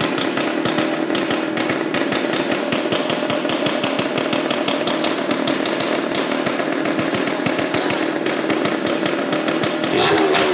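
Small motorcycle engine running steadily in a wall-of-death pit, a dense buzzing drone. Music comes in near the end.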